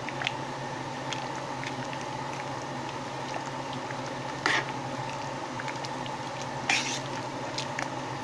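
Spoon stirring a pot of simmering chili beans, with a few short clinks and scrapes against the pot, the longest about seven seconds in, over a steady low hum.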